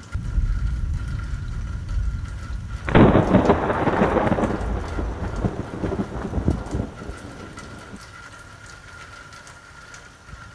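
Thunder in a thunderstorm with steady rain: a low rumble starts at once, a loud crack comes about three seconds in, and the rumbling dies away a few seconds later.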